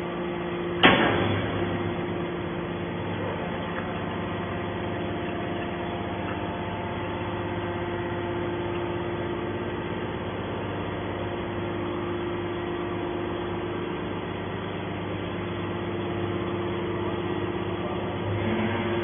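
Hydraulic scrap metal baler running steadily, a constant hum with a steady tone, as it pushes a compressed bale of scrap out of its chamber. A single sharp knock about a second in.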